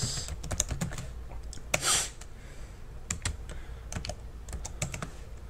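Typing on a computer keyboard: irregular keystroke clicks, with a short louder hiss just before two seconds in.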